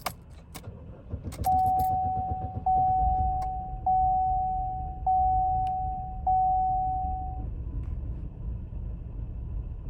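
Key clicks, then a Chevrolet Sonic's engine starts and runs with a low rumble while the dashboard warning chime sounds five times, evenly spaced; the chime is the loudest sound. It is just after refuelling, and the car has a failed evaporative purge valve, which makes it hard to start and rough at idle after a fill-up.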